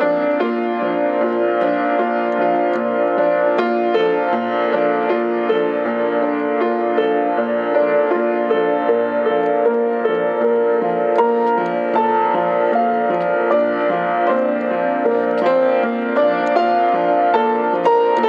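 Upright piano being played: a continuous flow of struck, overlapping notes, mostly in the middle register. The playing has a tone the player likens to a sitar.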